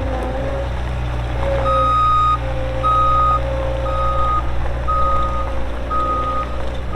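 Bobcat S66 skid steer's diesel engine running steadily while its backup alarm beeps about once a second as the machine reverses. The beeping starts about two seconds in.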